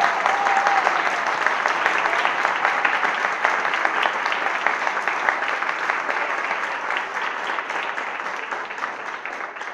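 Applause from many people clapping, dense and steady, easing off slightly near the end, following the end of a children's choir song.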